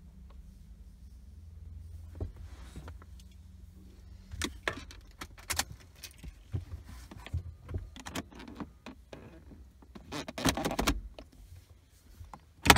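Small clicks and rattles of hard parts being handled, busiest about ten seconds in, then one sharp, loud click near the end as the centre-console cover over the car's cigarette-lighter socket pops open.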